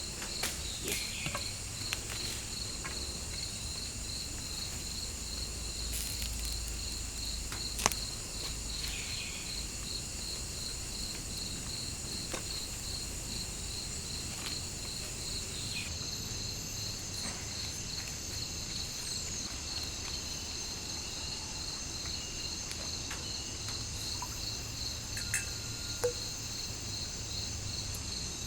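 Chorus of crickets and other insects: several steady high-pitched trills, one pulsing rapidly, with one of the tones shifting slightly lower about halfway through. A few faint clicks or taps sound scattered through it, the sharpest about eight seconds in.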